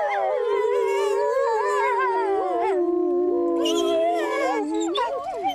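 A pack of Iberian wolves howling in chorus: several long howls at different pitches overlap, each gliding up and down.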